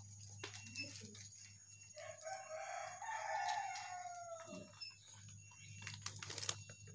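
A rooster crowing once: a call of nearly three seconds that drops in pitch at its end. A quick run of clicks follows near the end.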